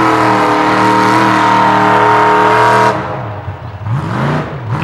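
Mud-bog pickup truck's engine held at high, steady revs as it churns through deep mud. About three seconds in the throttle drops sharply, and the engine then gives a few short revs up and down at lower speed.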